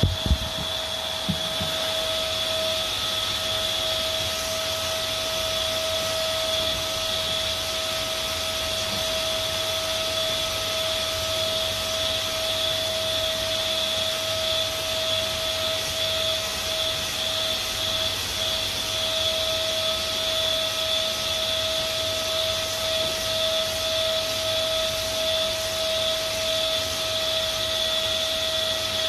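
Canister vacuum cleaner running steadily, a constant whine over a rushing hiss, as its hose is worked over fabric sofa cushions. A few light knocks in the first second or so.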